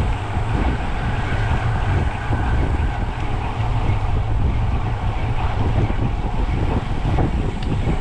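Wind buffeting the microphone of a camera riding along on a moving road bicycle: a steady low rumble with a rushing hiss over it.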